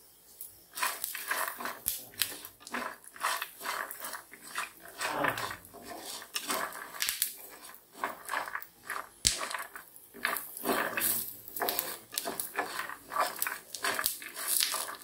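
Metal spatula stirring and scraping peanuts and urad dal frying in a little oil in a frying pan: repeated rasping scrapes, one to three a second.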